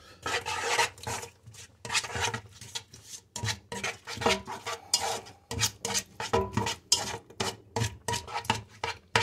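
A spatula stirring and scraping round a pot, mixing fried bacon cubes into a thick egg-yolk and cheese sauce: a quick, irregular run of scrapes with light knocks against the pot.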